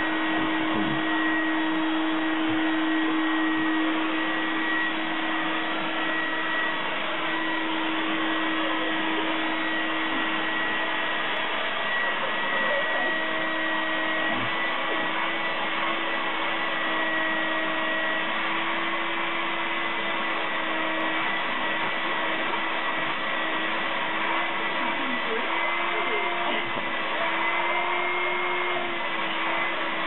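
Vacuum cleaner motor running continuously with a steady whine, its pitch shifting slightly now and then as the hose nozzle is moved over a cat's fur.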